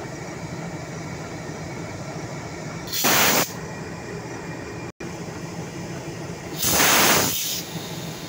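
A standing locomotive running with a steady hum while compressed air blows off from its air system in two loud hisses: a short one about three seconds in and a longer one of about a second near the end.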